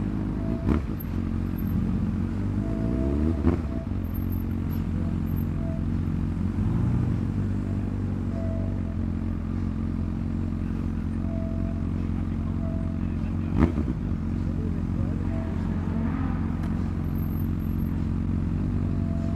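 Honda CB600F Hornet's inline-four engine with an SC-Project exhaust, running steadily at low revs, its pitch briefly sweeping a few seconds in. A few sharp clicks or knocks sound over it.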